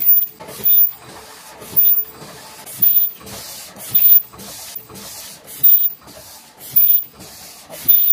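Paper food-box forming machine running at a steady cycle: a short hiss of air about once a second, with mechanical clatter from the forming station between the hisses.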